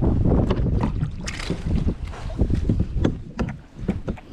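Landing net lowered into the sea beside a plastic kayak, with a splash of water about a second in, among repeated knocks and rattles against the hull and wind rumble on the microphone.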